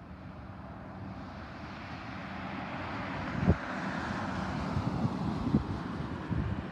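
Jet airliner on approach, its engine noise a broad rush that grows steadily louder as it nears. Two brief low thumps of wind on the microphone come about halfway through and again later.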